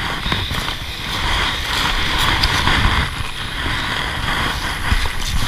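Waves washing over a pebble beach, one wash swelling and easing off in the middle, with wind rumbling on the microphone.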